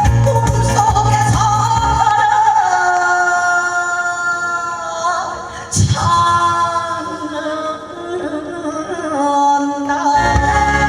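Trot song played over a backing track with a voice singing long, wavering held notes. About two seconds in the bass and beat drop out, leaving the voice over keyboard, with a single sharp knock near the middle; the full beat comes back near the end.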